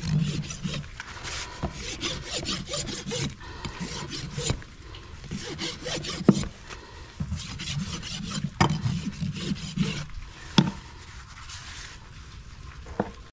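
Farrier's rasp filing a horse's hoof: repeated rough strokes across the hoof wall, broken by a few sharp knocks.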